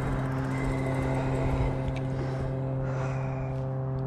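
Cyrusher Ranger fat-tyre e-bike being ridden at a steady speed: an even motor hum over the rush of tyres and wind.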